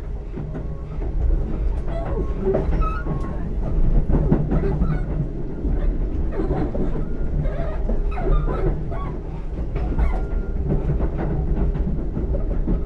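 Keisei AE100-series electric train running, heard from inside the passenger car: a steady low rumble and hum with irregular clicks and knocks from the wheels on the track, and a few short high squeals.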